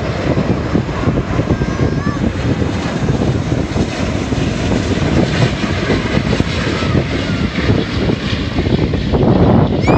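Airbus A380 airliner on final approach, its four Rolls-Royce Trent 900 turbofans at approach power: a loud, steady jet roar with a hiss that swells in the middle as the aircraft passes.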